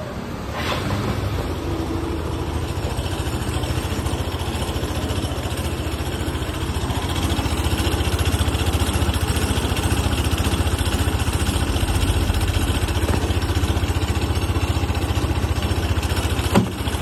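Second-generation Yamaha Cygnus X scooter's single-cylinder engine running steadily with an abnormal noise, a known common fault of the Cygnus X and GTR. The noise is loud enough to be a nuisance but does not affect riding. The sound cuts off suddenly at the end.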